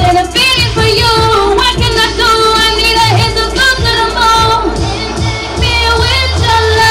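A woman singing lead into a handheld microphone over a live band, her voice sliding through long held and bending notes above a steady bass line and drums.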